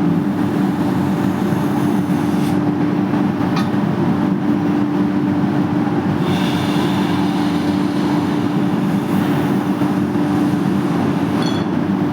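A machine running steadily and loudly with a constant low hum over dense mechanical noise, with a few faint higher ticks and whines along the way.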